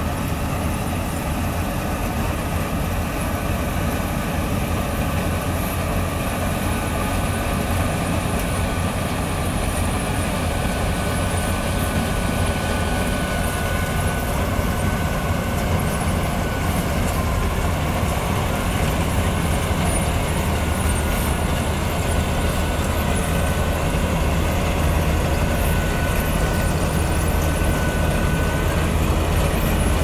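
Balkar combine harvester running steadily as it cuts ripe rice, its diesel engine humming under the clatter of the cutter bar, reel and threshing drum. A thin whine comes and goes, and the sound grows a little louder near the end as the machine comes closer.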